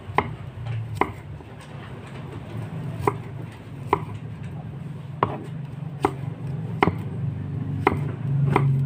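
Kitchen knife chopping a red onion on a thick round wooden chopping block: sharp knocks of the blade on the wood, roughly one a second and unevenly spaced, over a low steady hum.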